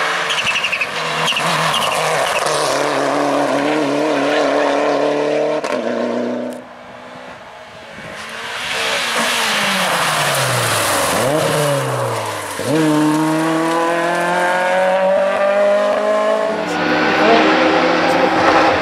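Rally cars at racing speed on a closed stage road, engines revving hard and rising and falling in pitch through gear changes and braking. Partway through, one car passes close and its engine note sweeps down as it goes by.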